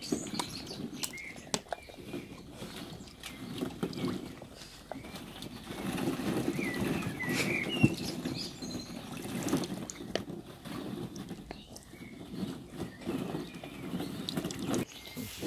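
Dalmatian puppies playing with plastic toys and in a plastic ball pit: rustling, scattered clicks and rattles, with a few brief high chirps about halfway through.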